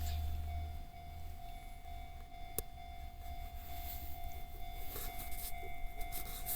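Japanese railway level-crossing alarm ringing with a steady tone. Under it, a low rumble drops away about a second in, and there are a few faint clicks.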